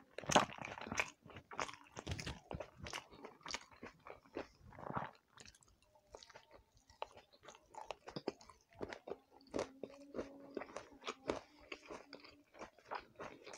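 Close-up chewing of soft steamed rice-flour pitha and roti, with many sharp, irregular mouth clicks and smacks.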